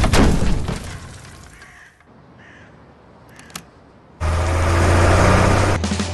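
A heavy crash and rumble of a Volvo dump truck smashing through a barrier, dying away over the first two seconds into a quiet pause with a few faint caws and a click. About four seconds in, loud music with a heavy bass line starts abruptly.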